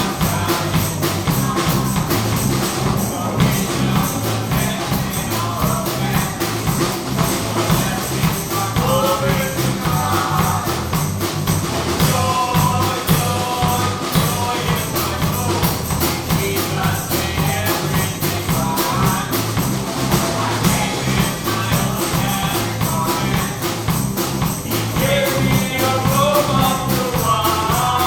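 Live gospel music from a congregational song: instruments keep a steady, driving beat with crisp jingling percussion, and singing voices come through now and then.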